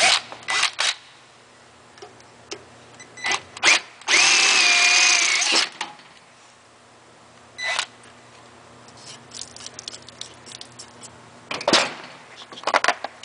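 Cordless drill running for about a second and a half, drilling out a rivet nut from a steel strip held in a vise. Short knocks and clicks of tools and parts being handled come before and after.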